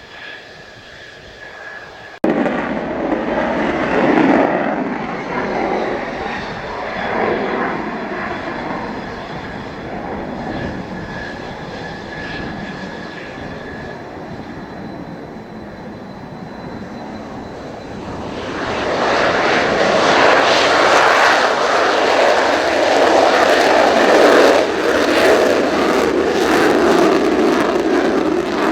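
Mitsubishi F-2 fighter jet's single turbofan running, a rushing roar with a thin high whine, after an abrupt cut about two seconds in. It swells much louder about two-thirds of the way through, with a crackle in the roar.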